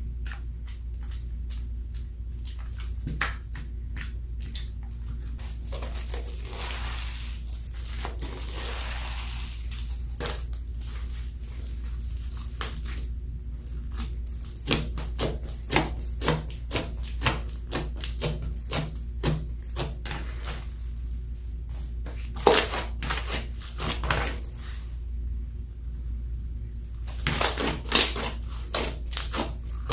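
Slime being squeezed and worked by hand: a soft squelching hiss for a few seconds, then a long run of sticky clicks and pops at irregular spacing, over a steady low hum.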